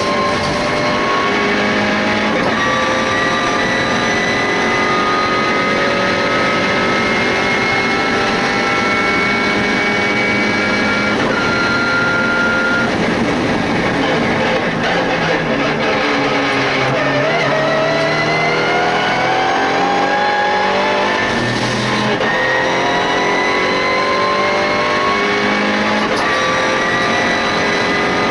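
MINI Challenge race car engine heard from inside the cockpit at racing speed: its pitch climbs slowly through a long pull, drops at a gear change a little before halfway, goes ragged under braking and downshifting, then climbs again through the gears with another upshift about three quarters of the way through.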